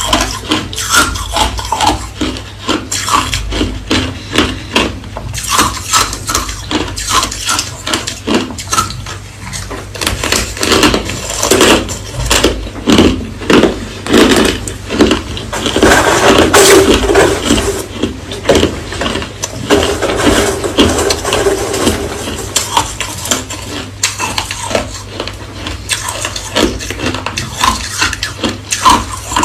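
Hard crushed ice being bitten and chewed, a steady run of crunches and cracks several times a second.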